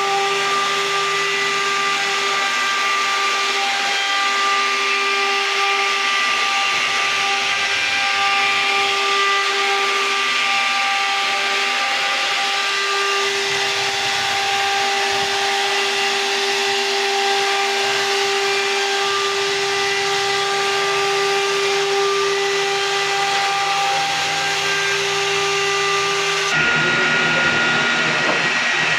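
CNC router spindle running steadily at speed while it engraves grooves into a wooden door board: a constant high whine over a hiss. The whine breaks off and the sound shifts abruptly a little before the end.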